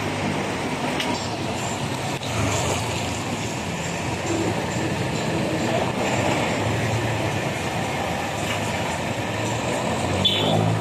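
City street traffic: motorcycles and a jeepney moving slowly past, a steady mix of engines and tyre noise. A short high-pitched sound near the end.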